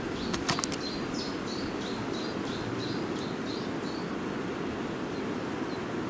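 A songbird calling a rapid series of short, high chirps, about three a second, for a few seconds, over a steady low background hum of outdoor noise. A few sharp clicks come about half a second in.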